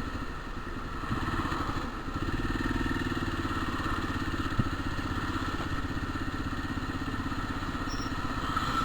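Motorcycle engine running steadily under way, with the growl in third gear that the rider hears from a gearbox just repaired with a new third gear. It picks up a little about one and two seconds in, and there is one short tick about halfway.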